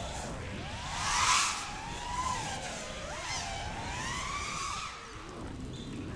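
FPV drone's T-Motor Pacer 2207.5 1950kv brushless motors whining in flight, the pitch sweeping up and down several times with the throttle. The whine is loudest about a second in.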